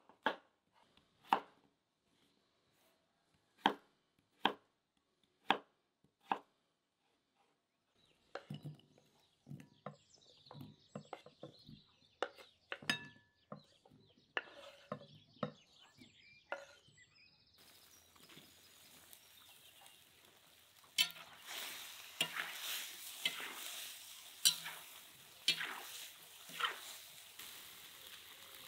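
Knife cutting potatoes on a wooden board: single sharp chops about a second apart. Then a run of quicker knocks and clatter as the cut potato goes into a glass bowl. From about two-thirds of the way in, beef heart and potatoes in a cauldron give a steady sizzle, with a few louder knocks.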